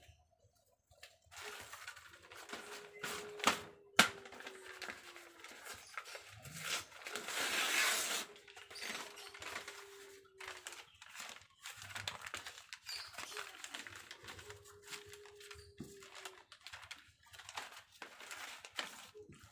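Stiff brown cement-sack paper being handled by hand, crinkling and tearing, with scattered taps and two sharp clicks. The loudest part is a longer rasping tear about eight seconds in.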